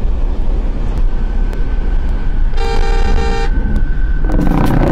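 Car engine and road noise rumbling steadily, heard from inside the car. About two and a half seconds in, the car horn sounds once for about a second, a warning to a cow standing in the road ahead; a rougher, shorter sound follows near the end.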